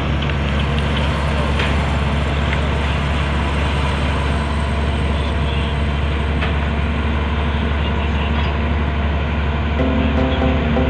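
Heavy engine machinery running with a steady, loud low drone.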